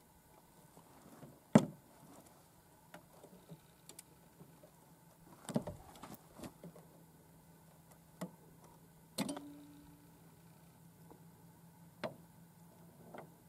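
Scattered sharp metallic clicks and clacks of a 12-gauge shotgun being handled on a wooden barricade, about half a dozen in all. The loudest comes about a second and a half in, and one near the middle leaves a short ring.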